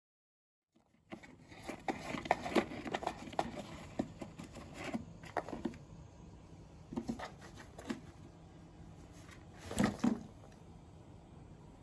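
Light, irregular taps, scrapes and rustles on a homemade cardboard box toy as a cat noses at it, starting about a second in, with a louder pair of knocks about ten seconds in.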